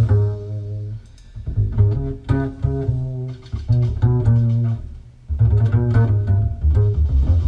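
Music played back over Energy Connoisseur C-7 loudspeakers, with a heavy plucked bass line and plucked string notes above it.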